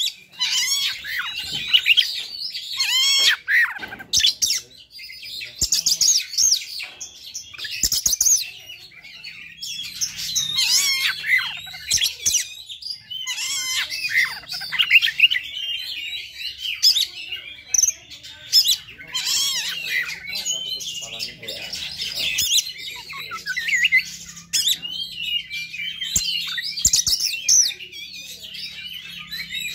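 Oriental magpie-robin singing an almost unbroken, fast, varied song of whistled phrases, trills and harsh notes. It is its high-arousal 'fighter' song, the aggressive territorial singing used to provoke other magpie-robins.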